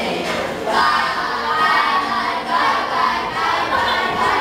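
A group of teenagers' voices singing and shouting together, many voices overlapping.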